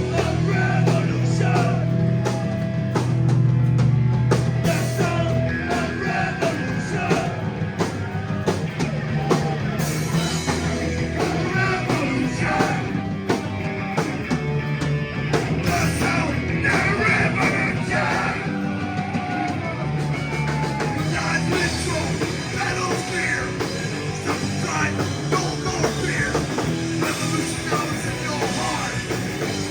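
Rock band playing live, with a drum kit, guitars and bass.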